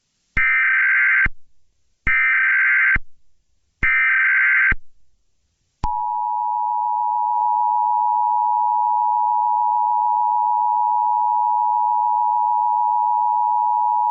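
Emergency Alert System SAME header: three identical bursts of digital data tones, each about a second long, followed by the EAS two-tone attention signal, a steady dual tone held for about eight seconds. Together they signal that an emergency alert message is about to be broadcast.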